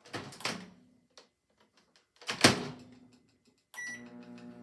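Cuisinart countertop microwave: its door latch clicks open, then the door shuts with a sharp knock about two and a half seconds in. Near the end a keypad beep sounds and the microwave starts running with a steady hum, showing that it has power.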